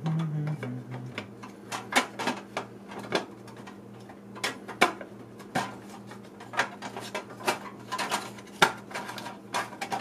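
Small pieces of a vintage Marx castle playset being handled and fitted together: irregular sharp clicks, taps and light clatters at uneven spacing.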